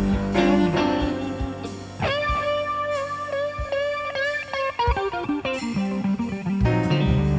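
Background music led by an electric guitar: a run of plucked notes, a long held wavering note from about two seconds in, then quicker notes again.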